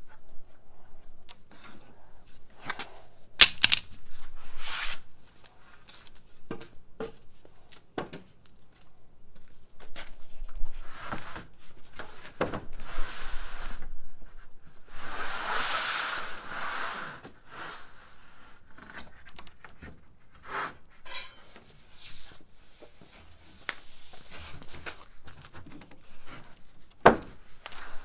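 Handling noise: cloth rubbing over the microphone, then sheets of 3/4-inch okoume plywood being slid and shifted on a wooden bench, with scattered knocks and clicks. A sharp knock comes about three seconds in and another near the end, and a sliding hiss runs through the middle.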